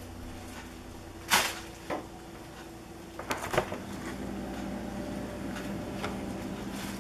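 A couple of knocks, then a side-by-side refrigerator's freezer door pulled open with a few clunks about three seconds in. A steady low hum sets in as the freezer stands open.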